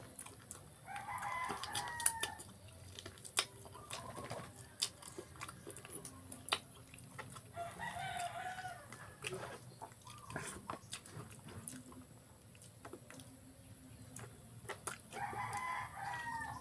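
A rooster crowing three times, about seven seconds apart, under short clicks and smacks of someone eating with their hands.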